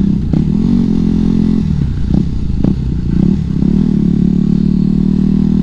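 Yamaha WR250X's 250 cc single-cylinder four-stroke engine running through an FMF Mega Bomb header and Q4 silencer while riding. The revs rise and fall twice as the throttle is opened and eased, with a rougher, lower stretch in between.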